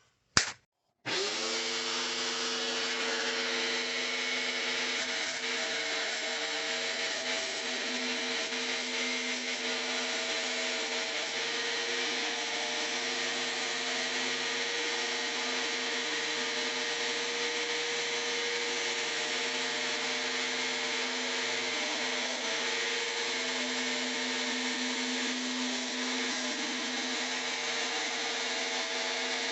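Rockwell Blade Runner X2 tabletop jigsaw starting about a second in after a short click, then running steadily with a constant whine as its blade cuts a freehand circle in wood.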